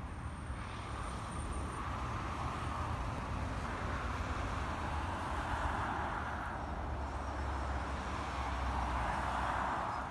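Road vehicles, a van and a car, driving across a level crossing: steady tyre and engine noise that swells twice as they pass.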